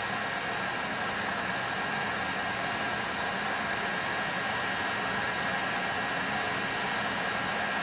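Handheld heat gun blowing on high, together with a ceramic space heater and the cooling fan of a portable power station carrying about 2,800 watts. The sound is a steady rush of air with a faint high whine.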